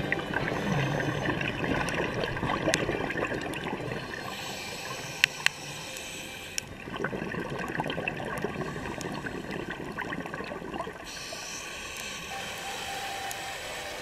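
Water gurgling and rushing in two long surges, with a couple of sharp clicks in between.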